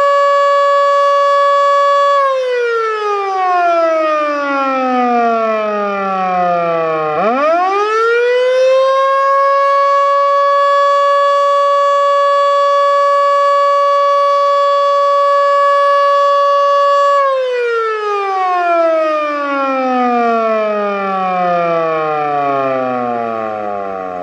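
Federal Signal Model 2 electromechanical storm siren sounding its attack signal: the steady tone falls, sweeps quickly back up to full pitch and holds, then winds down in a long falling glide in the last third. The uploader judges its bearings to be already in poor shape.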